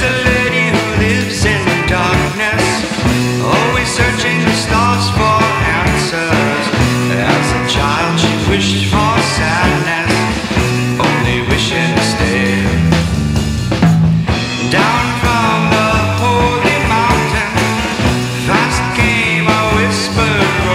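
Heavy psychedelic rock music from a full rock band, with drums and a pulsing bass under bending, gliding lead lines.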